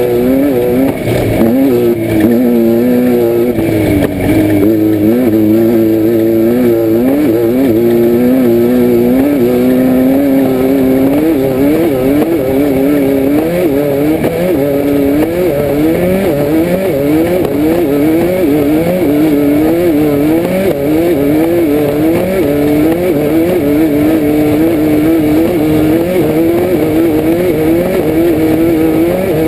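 The air-cooled 1600 cc VW flat-four engine of a Class 5-1600 Baja Bug, heard from inside the car at race pace. It revs up and eases off over and over, about once a second, with a couple of knocks from the rough course in the first few seconds.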